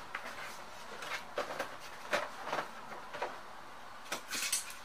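Cardboard box flaps being pulled open by hand: short, scattered rustles and scrapes of cardboard, with a longer scraping rustle near the end.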